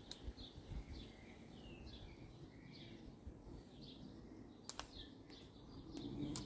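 Faint bird chirps, short rising and falling whistles repeated over the first few seconds, with a couple of small sharp clicks near the end.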